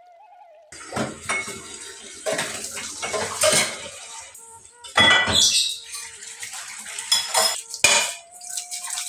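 Plates clattering and clinking against each other in a stainless steel sink as they are washed by hand, in irregular knocks that start about a second in.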